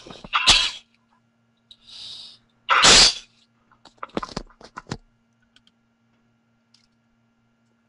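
A person's sharp, breathy bursts close to the microphone, the loudest about half a second and three seconds in, followed by a quick run of small clicks around four seconds in.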